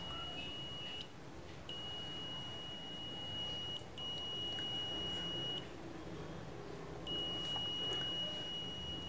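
Multimeter continuity beeper, a piezoelectric buzzer disc, giving a steady high-pitched tone while the test probes touch, which signals continuity and shows the buzzer works. The tone breaks off about a second in and sounds three more times, each beep lasting one to two seconds.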